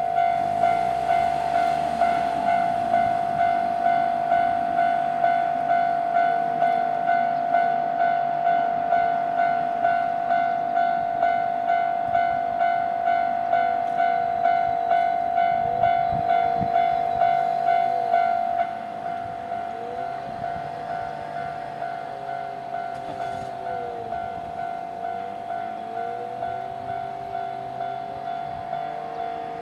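A Japanese level-crossing electronic warning bell dings steadily at about one and a half dings a second. About two-thirds of the way through, the bell drops to a lower volume, while the rising and falling sound of a train running through the crossing is heard.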